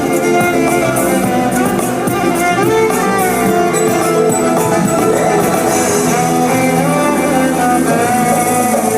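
Loud music playing: melodic lines over sustained instrumental notes.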